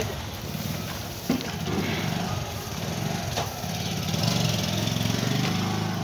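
A small engine running steadily with a fast, even putter, with a couple of brief knocks.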